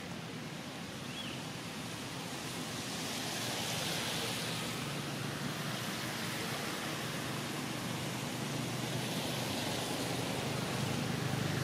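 A steady rushing hiss of outdoor ambience that swells twice, over a faint low hum.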